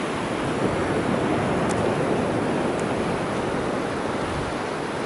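Ocean surf washing onto a sandy beach: a steady rush of breaking waves that swells slightly about a second in.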